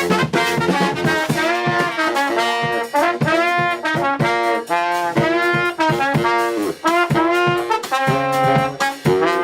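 A small four-piece brass band playing a lively tune, trumpet and trombone lines in short, detached notes.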